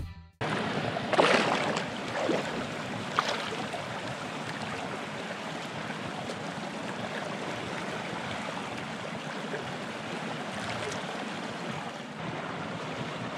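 Steady rush and ripple of water in a shallow hot spring creek, with a few louder splashes and sloshes in the first few seconds as a person wades in and lowers himself into the water.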